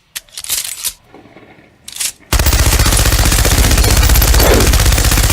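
Gunfire: a couple of short bursts, then sustained rapid automatic fire from a little over two seconds in.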